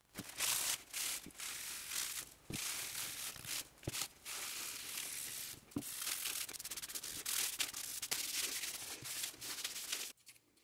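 Cloth rubbing back and forth over a laser-engraved wooden board, working a dark paste into the engraving and wiping it off, in a series of uneven scraping strokes with short pauses. The rubbing stops shortly before the end.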